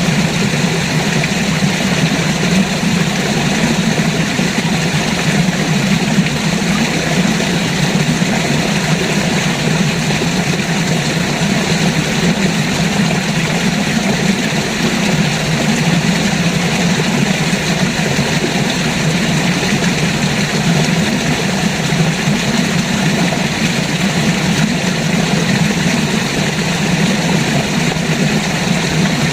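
River water flowing: a steady, unbroken rushing noise with a strong low rumble.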